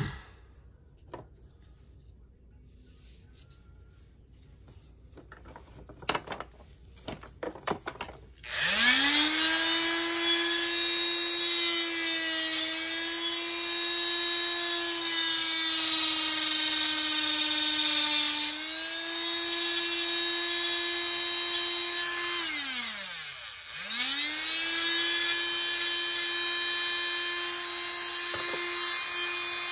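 Small electric power tool used on tulsi wood: a few handling clicks and knocks, then its motor starts about a third of the way in and spins up to a steady high whine, its pitch dipping slightly now and then. Near two-thirds it winds down to a stop and then spins up again.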